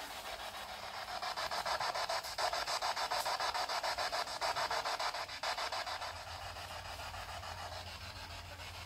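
Spirit box sweeping through radio frequencies: choppy static hiss through its small speaker, stuttering several times a second. It swells louder from about a second and a half in, then eases back after about five and a half seconds.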